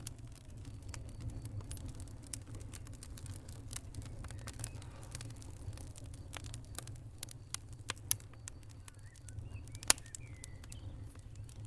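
Wood fire in a fireplace crackling, with irregular sharp pops and snaps, the two loudest about eight and ten seconds in, over a low steady rumble.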